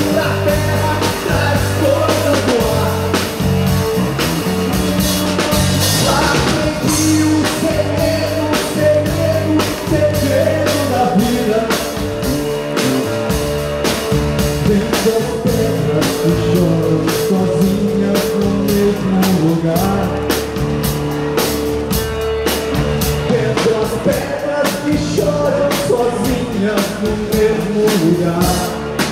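Live rock band playing: electric guitars and bass over a drum kit keeping a steady beat.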